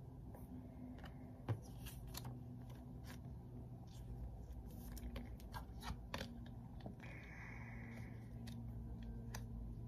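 Match Attax trading cards being shuffled and flipped through in the hands: faint scattered clicks and slides of card stock, with one sharper tap about a second and a half in, over a steady low hum.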